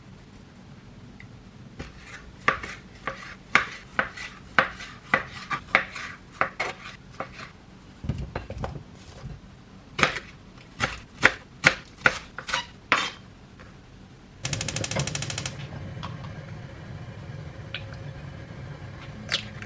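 Kitchen knife chopping on a cutting board in sharp, separate strokes, about two a second, in two runs. About three-quarters of the way through comes a brief burst of rapid ticking, followed by a steady low hiss.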